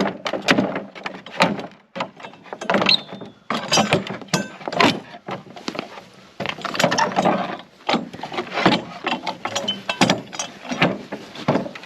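Pallet boards being pried off with a pallet buster: irregular cracks, creaks and knocks of wood and nails giving way, close together.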